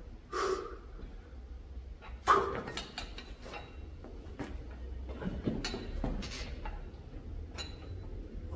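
A man's sharp, forceful exhalations while lifting a dumbbell: two loud huffs in the first couple of seconds, then softer breathing with a few light knocks and rustling as he shifts position on the bench.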